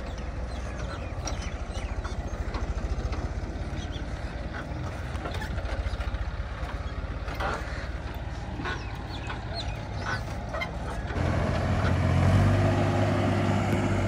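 Heavy diesel engine running with a steady low throb. About eleven seconds in it turns suddenly louder, with a steady hum and a higher whine that dips slightly near the end.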